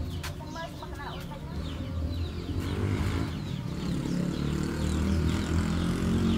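Chickens clucking, with small birds chirping over and over, and a low rumble that grows louder from about halfway through.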